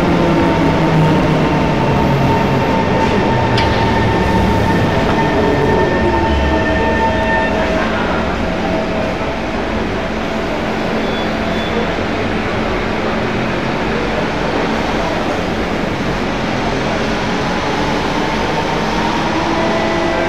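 Siemens C651 metro train braking to a stop at an underground platform, its GTO-VVVF traction motors whining in falling tones with wheel rumble until it halts about eight seconds in. It then stands with a steady hum and whirr from its on-board equipment.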